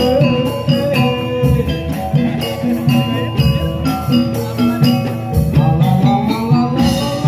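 Javanese gamelan music for a jathilan dance: struck metal keyed instruments play a steady melody over a drum beat, with bright jingling on top.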